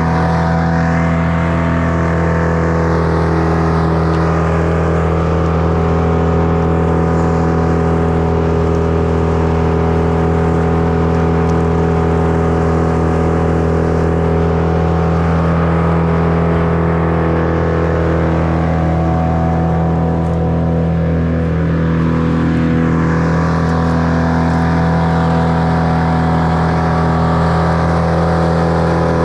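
Gas engine of tree-work power equipment running steadily at constant high speed, held at one even pitch and level without revving up or down.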